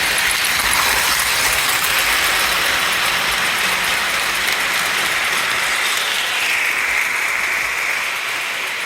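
Model train running on its track: a steady whirring of its motor and gears with wheel noise on the rails, easing off a little near the end.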